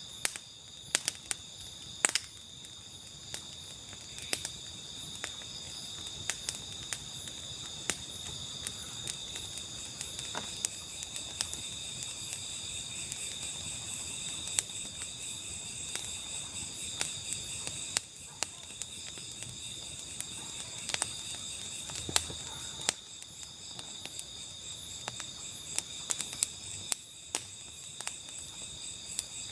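Chorus of crickets and other insects, a steady high-pitched trill in several bands, with frequent sharp clicks and crackles scattered throughout.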